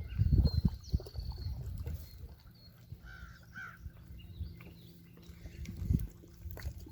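Birds calling, with a few low thumps in the first second and again near the end.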